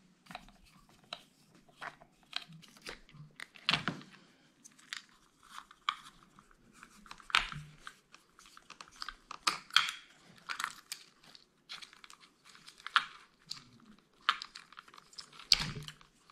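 Small irregular clicks, scrapes and crackles of hand work on a small RC car's electronics, as a small screwdriver and fingers work the old ESC and its plastic-sheathed wires loose from the chassis. Two sharper knocks stand out, a little under four seconds in and near the end.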